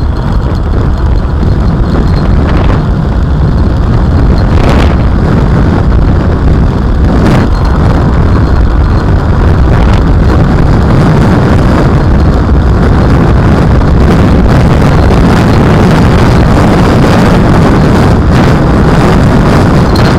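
Electric motorcycle (a 100 V e-Grom) accelerating and running at speed, a steady noisy rush with heavy wind buffeting on the microphone, growing louder about four seconds in.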